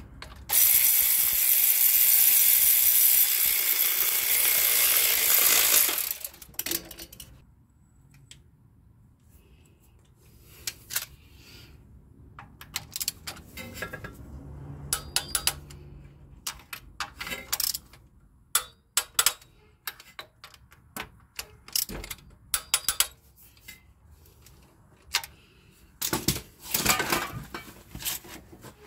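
A power tool runs for about five seconds, then a ratchet wrench clicks in short irregular runs as the oil filter adapter housing bolts are tightened, with a denser run of clicks near the end.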